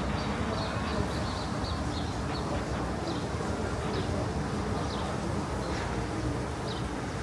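City street ambience: a steady rumble of traffic and background noise, with scattered short high chirps.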